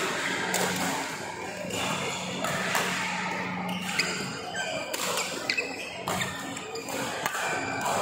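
Badminton doubles rally: sharp smacks of rackets striking the shuttlecock at irregular intervals, mixed with squeaks of court shoes on the mat. A steady hum or music runs underneath.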